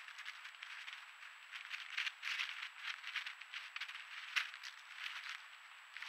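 Eastern gray squirrel scurrying through dry fallen leaves: quick, irregular crackly rustles, loudest around two seconds in and again a little after four seconds.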